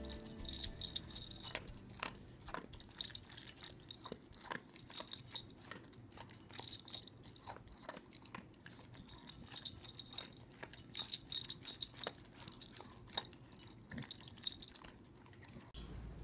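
Dog eating from a bowl: faint, irregular crunching and chewing with many small sharp clicks.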